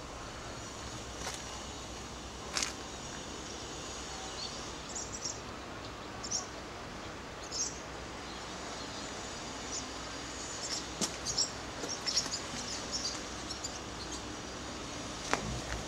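Outdoor background noise with short, high bird chirps, scattered at first and coming in a quick cluster in the second half. A single sharp click sounds about two and a half seconds in.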